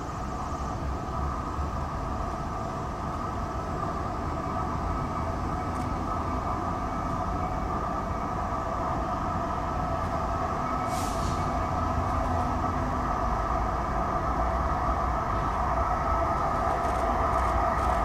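EF81 electric locomotive hauling a 205 series electric train set, rolling along track and drawing nearer, its steady rumble growing gradually louder. A short hiss comes about eleven seconds in.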